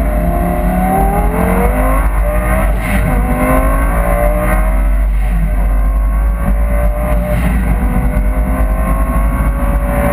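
Twin-turbo Lamborghini Gallardo V10 engine accelerating hard and rising in pitch, dropping back at gear shifts about three and five seconds in, then climbing slowly again.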